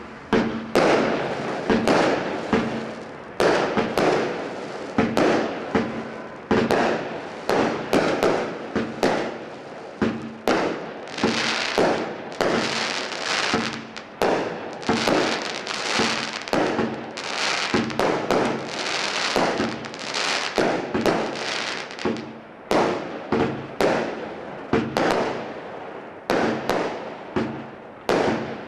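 Black Cat Scorpio Rising multi-shot firework cake firing a steady barrage, about two shots a second, each launch bang followed by its burst in the air, with a denser crackling hiss through the middle stretch.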